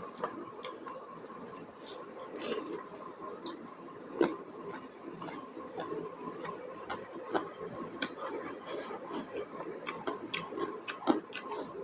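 Close-up eating sounds: irregular wet clicks and smacks of chewing buffalo innards curry, several a second.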